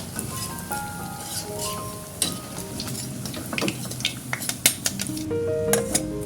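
Food sizzling in a frying pan while a metal utensil stirs it and clinks against the pan several times, over background music.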